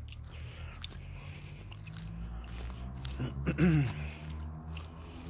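Footsteps and phone-microphone handling noise while walking, over a steady low rumble. About three and a half seconds in there is a brief pitched sound that rises and then falls in pitch, the loudest moment.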